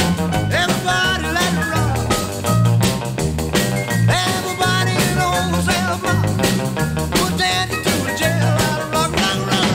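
Upbeat band music with a fast, steady beat and a moving bass line.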